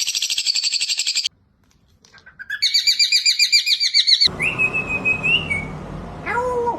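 A baby parrot calling: a fast run of high, rattling chirps that stops about a second in, a short pause, then another run of rapid pulsed calls. After about four seconds the background changes, and there is a held whistle and a couple of short calls that fall in pitch.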